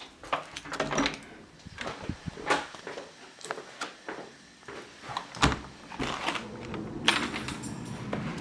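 Handling noise from a handheld camera carried on foot through a house and out of a door: irregular knocks, clicks and footsteps, with door and latch sounds.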